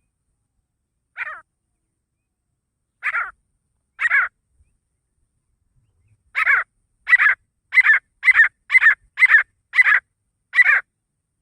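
Male grey francolin (desi teetar) calling with harsh, ringing notes: three single notes spaced out, then from about six seconds in a quicker run of about nine notes at roughly two a second.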